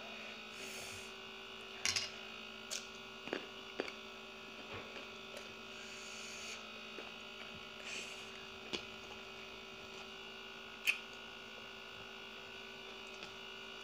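Quiet eating sounds, a handful of scattered short clicks and mouth smacks from chewing and taking rice and fish from a plate by hand, over a steady electrical hum.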